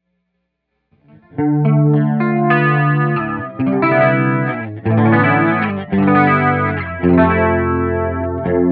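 Clean electric guitar played through a DOD FX75-B stereo flanger pedal. After a moment of silence, chords start about a second in, struck roughly once a second and left to ring.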